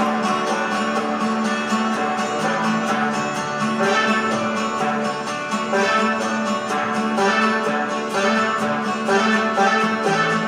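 Karaoke backing track playing its instrumental intro, a steady-paced band arrangement with no singing yet.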